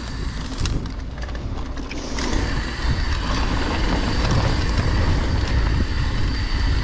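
Wind buffeting the camera microphone and knobby tyres rumbling over a loose dirt trail as a Trek Session downhill mountain bike rolls down it, with a few rattling clicks from the bike in the first second. The rush gets louder and fuller about two seconds in as the bike picks up speed.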